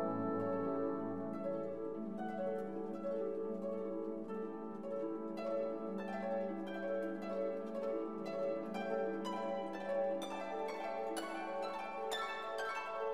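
Background music: a melody of plucked string notes over a held low note, the notes coming faster and brighter towards the end.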